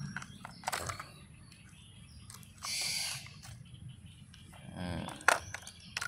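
Hard plastic toys knocking together as a toy excavator is set into a plastic toy dump truck's bed: a few sharp clicks, one a little under a second in and the loudest two near the end. A brief hiss about three seconds in.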